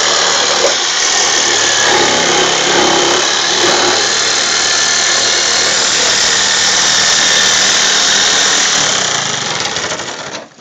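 Handheld corded power saw running steadily with a loud, rough buzz as it cuts along the edge of a car windshield; it stops near the end.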